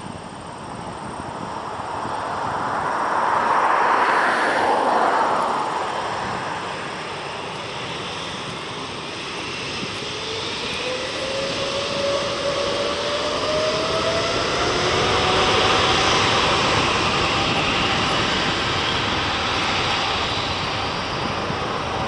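Jet airliner's twin turbofan engines running on the runway: a steady roar that swells twice, with an engine whine that rises in pitch about halfway through and then holds.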